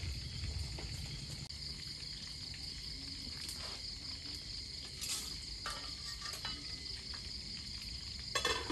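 Steady high-pitched chorus of night insects, with scattered light clicks and clatters of kitchen utensils and pots, the loudest clatter near the end.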